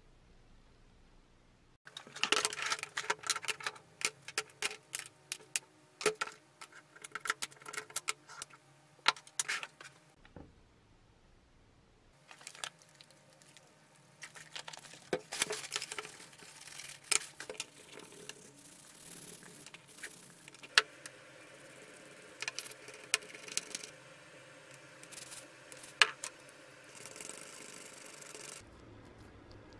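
Small metal parts of a Black & Decker drill clinking and rattling. After a short pause, cleaner is poured over the stripped drill parts in a plastic tub, followed by a wire brush scrubbing grime off a small metal part.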